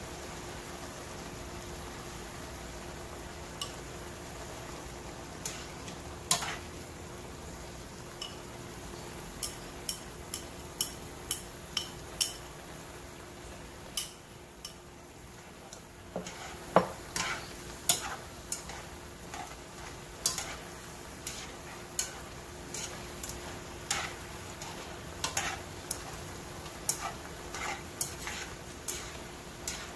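Chopsticks and a spatula clicking and scraping against a nonstick frying pan as beaten egg is stirred through sautéed loofah slices. The sharp, irregular taps come about one or two a second over a faint steady sizzle.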